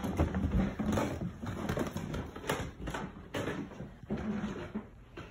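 Footsteps climbing wooden stairs and then walking along a hallway floor: irregular thuds about every half second, growing quieter near the end.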